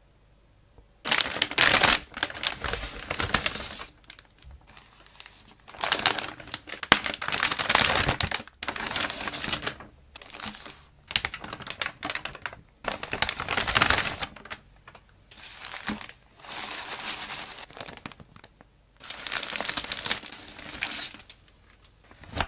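Thin plastic packaging bags crinkling and rustling as they are handled and opened, in repeated bouts of a second or two with short pauses between.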